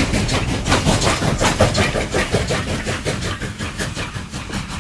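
Steam locomotive chuffing in an even rhythm of about five beats a second over a low rumble, fading away near the end.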